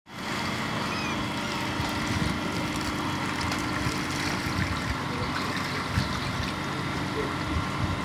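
A small motor running steadily, with water splashing and trickling as a dip net full of tilapia fingerlings is pulled from the pond and lowered into a bucket.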